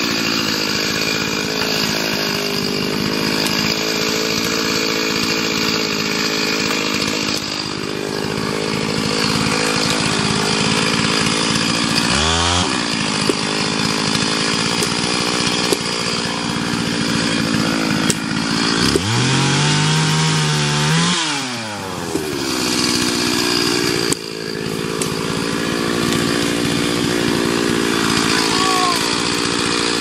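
Two-stroke chainsaw running at high revs, cutting wood. The engine note sweeps up sharply about twelve seconds in, and again drops low and climbs back up around twenty seconds in.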